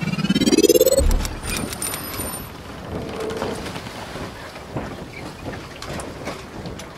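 Logo-intro sound effect: a rising tone sweeps upward over about a second and lands on a deep boom, followed by a rushing, crackling noise with scattered clicks.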